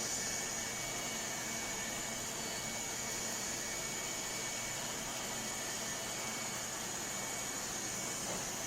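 ILIFE A12 Pro robot vacuum running steadily: an even hiss of its suction with a constant high whine.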